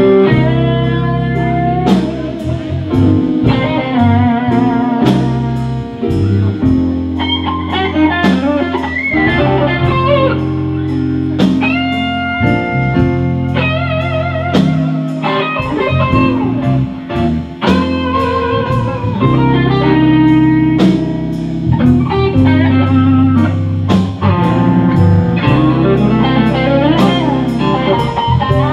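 Blues electric guitar solo on a Fender Stratocaster, with bent notes and wide, wavering vibrato, over the band's steady bass line and drum beat.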